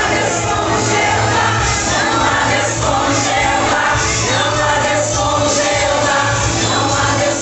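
A choir singing gospel music over loud, steady instrumental accompaniment.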